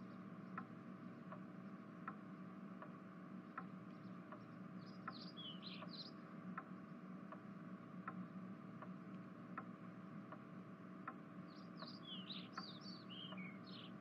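Faint background ambience: an even tick about every three-quarters of a second over a low steady hum, with two short runs of high bird chirps, about five seconds in and near the end.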